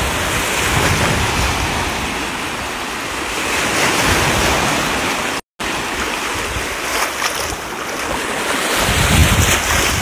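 Sea waves washing, with wind buffeting the microphone; the sound drops out completely for an instant about halfway through.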